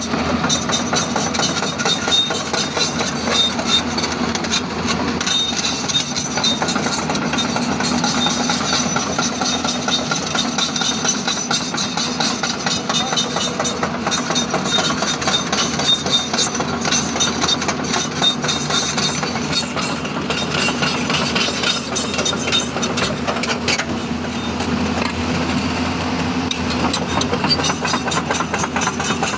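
Crawler excavator's diesel engine running steadily and loudly, with a fast, even rattle.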